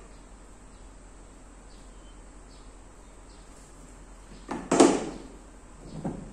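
Aluminium floor pieces of an inflatable boat clattering as they are handled and laid into the hull: a loud clatter about four and a half seconds in and a smaller knock near the end.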